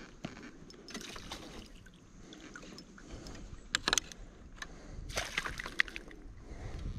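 Water sloshing and splashing around a landing net held in the water beside a kayak with a caught fish in it, with a few short sharp splashes and knocks, the clearest about four seconds in and a cluster a second later.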